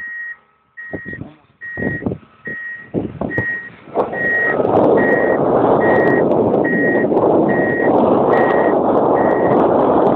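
An electronic warning beeper sounding one short, high beep about every 0.8 seconds, like a vehicle's reversing alarm. A few rough noise bursts come through early, and from about four seconds in a loud, steady rushing noise sits under the beeps.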